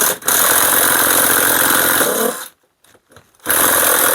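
Cordless impact driver hammering as it backs out a rusted bolt holding a camper's rooftop A/C unit. It runs in two loud bursts, about two seconds and then about a second, with a brief pause between.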